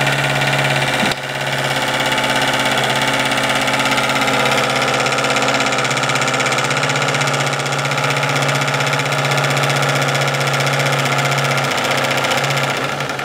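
Homemade twin-cylinder, double-acting brass steam engine running fast on live steam with no load, its generator belt off, giving a steady, rapid mechanical running sound.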